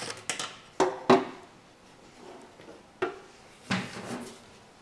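Metal clanks and knocks as the sheet-metal oil pan is worked loose and lifted off a Chevrolet 235 inline-six block: a handful of sharp strikes with short ringing, the loudest about a second in.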